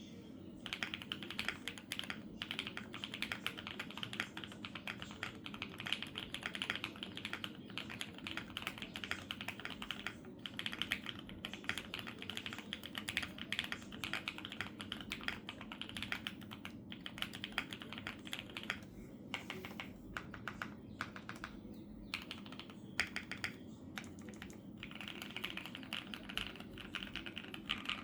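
Continuous fast typing on a Neo80 gasket-mount mechanical keyboard with lubed SP-Star Meteor V2 switches and full foam: a dense run of keystrokes that thins out with short gaps about two-thirds of the way through, then picks up again near the end.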